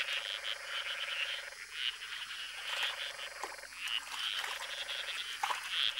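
Chorus of Madagascan golden frogs calling at a rain pool: many overlapping high chirps, over a lower rattling trill that starts and stops in stretches of about a second. It is the breeding chorus that follows the first rains of the wet season.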